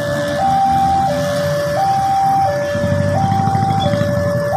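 Railway level-crossing warning alarm sounding a steady two-tone electronic hi-lo call, each tone held under a second, which warns that a train is approaching. Under it, the engines of a minibus and motorcycles crossing the tracks run, louder about three seconds in.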